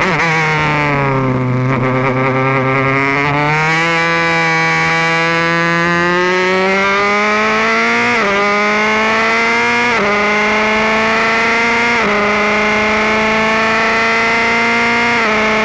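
Formula Renault 2.0 single-seater's four-cylinder engine heard from the cockpit: the engine note falls as the car slows for a corner, then climbs steadily under full throttle. Three upshifts about two seconds apart each give a brief dip in pitch, and near the end the note falls again as the driver lifts off.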